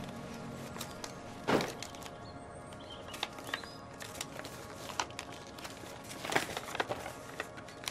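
Paper being handled and unfolded, a string of sharp crinkles and rustles, loudest about a second and a half in and again around six seconds, over quiet background music.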